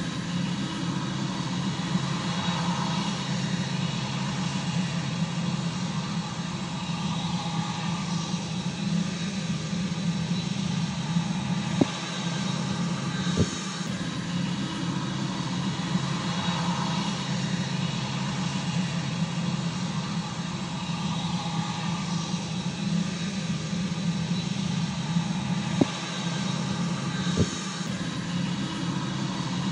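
Boeing 747-8i jet engines running steadily at taxi power: a continuous low hum under a rushing jet noise that swells and fades slowly. Two pairs of brief sharp ticks about a second and a half apart cut through it.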